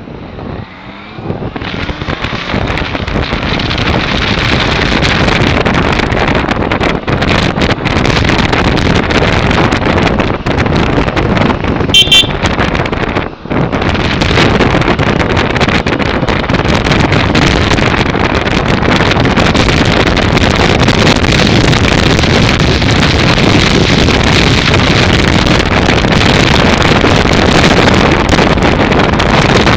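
Wind rushing over the helmet camera's microphone on a moving motorcycle, building as the bike speeds up out of the roundabout over the first few seconds and then holding steady. A short horn toot about twelve seconds in.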